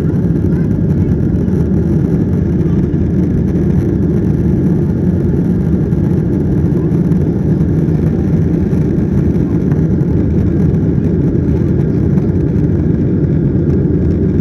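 Steady low rumble of cabin noise inside a Boeing 737-900ER in flight: engine and airflow noise, even throughout.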